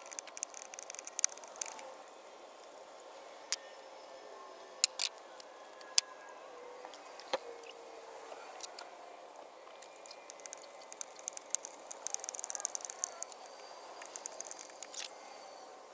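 Socket ratchet clicking in short runs of rapid ticks while a spark plug is worked with a U-joint extension, with occasional single sharp knocks of tools on metal.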